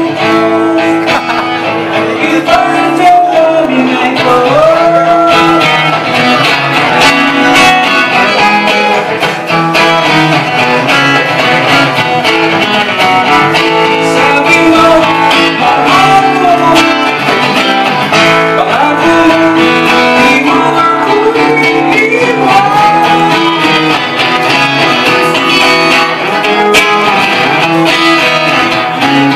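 A man singing a Tagalog ballad while strumming an acoustic guitar.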